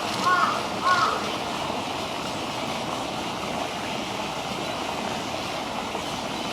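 A crow cawing in a quick series of calls that stops about a second in, over a steady rush of flowing water.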